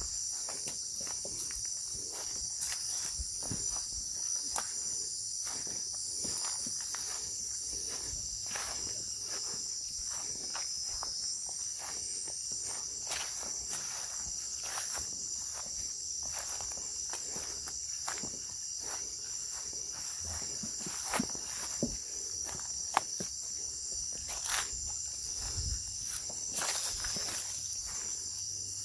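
Footsteps and rustling through dry thorny brush, over a steady high chirring of night insects such as crickets. A couple of sharper snaps come about two-thirds of the way through.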